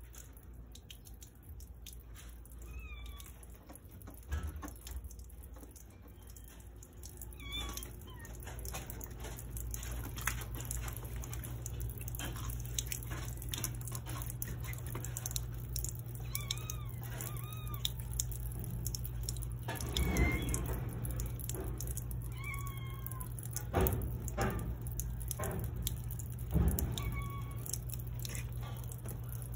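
Thin stream of water trickling from a garden hose onto a wet concrete floor while a cat laps at it, with small wet clicks. Short high calls break in about seven times, and a steady low hum runs under it from about a third of the way in.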